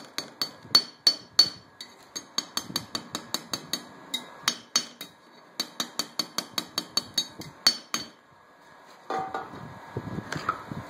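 Blacksmith's hammer striking steel in quick, even blows, about three to four a second, each with a short metallic ring: the thin steel of a small draw knife blade being drawn out and narrowed. The blows pause briefly near the middle and stop about eight seconds in.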